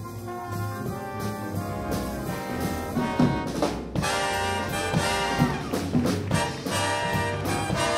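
Jazz big band playing, with the full brass section of trumpets and trombones to the fore alongside saxophones, over piano, bass and drums. The ensemble grows louder and fuller about four seconds in.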